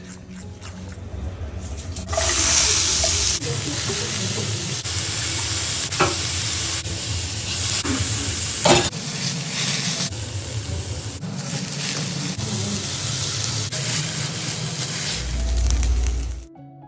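Sliced onions and green chillies sizzling in hot oil in a frying pan as they are stirred, with a couple of sharp knocks. The sizzle starts about two seconds in, breaks off and resumes several times, and stops suddenly near the end, with music underneath.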